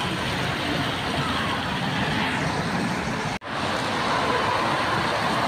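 Traffic on a wet road: a steady hiss of tyres and passing cars. The sound cuts out for a split second about three and a half seconds in.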